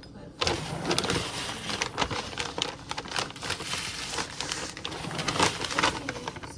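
Dry chicken treats being poured from a plastic bag into a container: a dense patter of small pieces landing, mixed with the bag crinkling.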